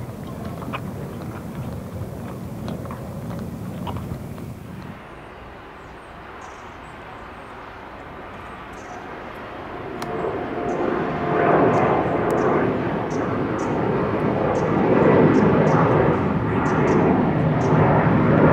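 Aircraft engine noise: a quieter background rush for the first half, then from about ten seconds in a loud rush with a faint tone in it builds and holds.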